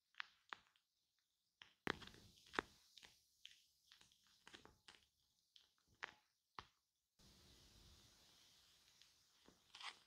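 Shaving cream on a microphone: soft, irregular crackling and squishing clicks, with a stretch of steady rustling hiss from about seven seconds in until near the end.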